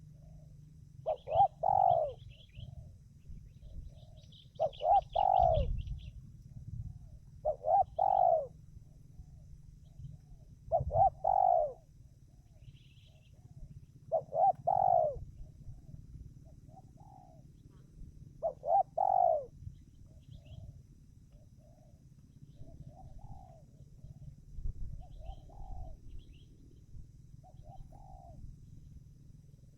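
Spotted dove (tekukur) singing: six loud cooing phrases about every three to four seconds, then softer coos near the end. Small birds chirp faintly in the background.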